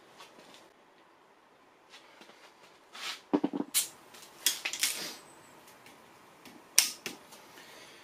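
Scattered metallic clinks and knocks of a socket wrench and bolts being worked on an engine block: a cluster of sharp clicks about three to five seconds in and one sharp clack near seven seconds.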